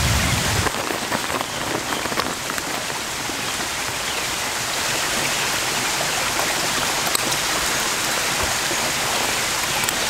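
Steady rushing of a mountain stream running over rocks.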